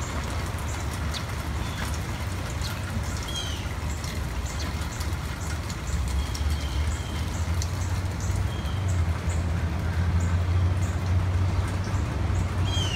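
Wind rumbling on the microphone, louder from about halfway, over a light patter of rain just starting. Small birds chirp again and again over it, with a few short falling calls.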